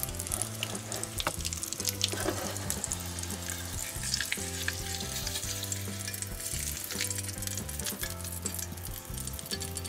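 Bacon grease sizzling and crackling in a miniature metal frying pan as a quail egg fries. Occasional light clicks and scrapes come from a small spoon and spatula working in the pan.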